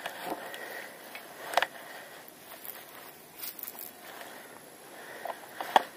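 Dry grass rustling and crackling as it is handled close by, with a few sharp clicks, the loudest about a second and a half in and near the end.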